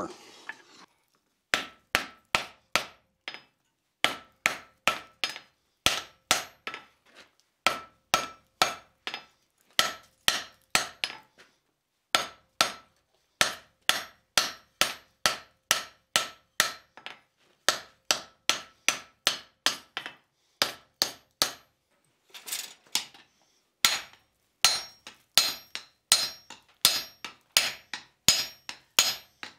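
Hand hammer striking a glowing flat bar on an anvil, in runs of several sharp blows about two to three a second with brief pauses between runs, each blow carrying a short metallic ring.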